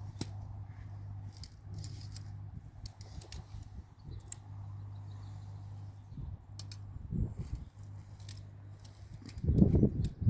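Tent parts being handled: scattered light clicks and rattles over a steady low hum, with heavier low thumps about seven seconds in and again, loudest, near the end.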